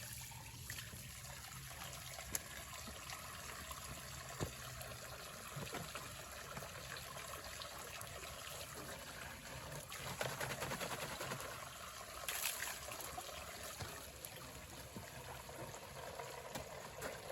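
Spring water trickling steadily from a pipe set into a hillside.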